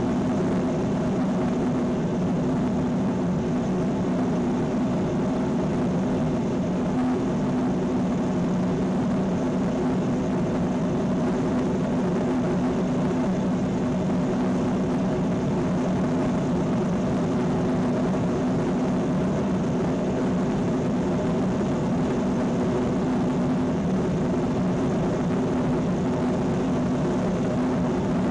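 F-1 rocket engine gas generator firing steadily, burning kerosene and liquid oxygen: a loud, unbroken rushing blast with a low droning hum beneath it.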